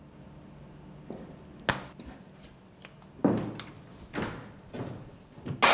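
A sharp click a little under two seconds in, then a few softer knocks and rustles over the following seconds.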